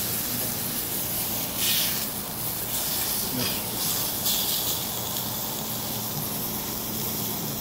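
Beef striploin steak sizzling in a hot pan: a steady frying hiss, briefly louder a few times.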